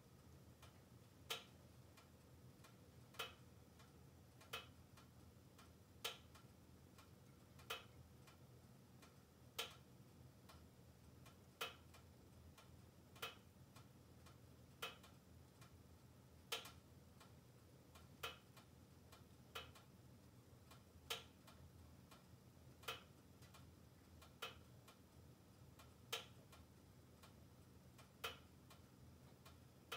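Wood-burning stove with a fire going: a single sharp tick roughly every one and a half to two seconds, a little uneven, over near silence.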